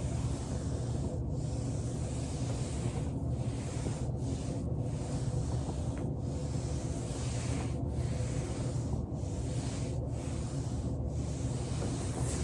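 Foam roller rolling back and forth under a body, a steady rubbing with brief breaks every second or two.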